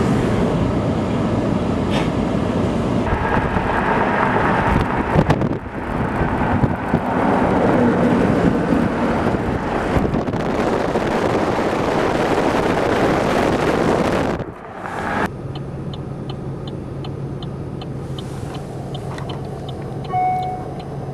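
A car's engine revving hard with the tires spinning in deep snow, the vehicle stuck and trying to get free. About fourteen seconds in, the revving stops. The engine then runs at a steady low hum with a regular light ticking, about two or three ticks a second.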